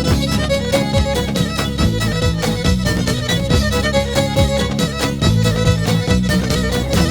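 Instrumental introduction of a Turkish folk song: a fiddle-like bowed melody over a steady, fast beat.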